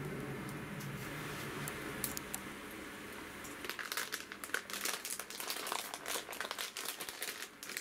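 A pan of sauce heating over a small wood-burning stove, with a steady hiss of simmering and burning wood. From about three and a half seconds in, a dense run of irregular crinkling, like a plastic snack bag being handled and opened.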